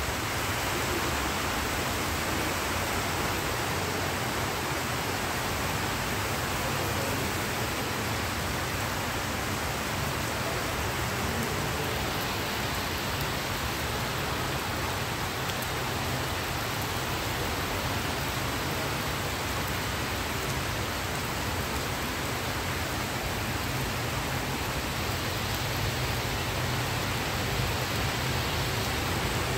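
Heavy rain pouring down onto tiled paving and plants, a steady, even hiss of falling and splashing water.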